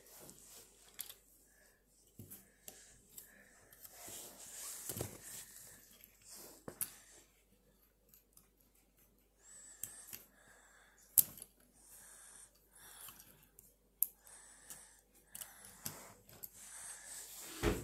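Plastic LEGO pieces handled and pressed together: scattered sharp clicks, the loudest about eleven seconds in, with soft hissing between. A dull thump near the end.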